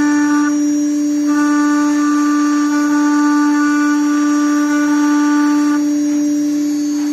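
5.5 kW milling spindle of a CNC router whining steadily as its end mill engraves lettering into a metal plate. A second, higher whine runs over it and drops out twice, for about a second each time.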